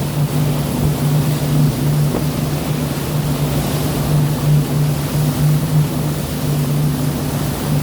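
Steady low engine drone, as from a boat's motor, over the wash of the sea and wind noise on the microphone.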